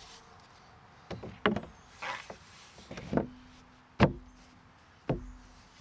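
A composite deck board being set down and fitted into place on wooden deck framing, knocking against it about six times. The sharpest knock comes about four seconds in.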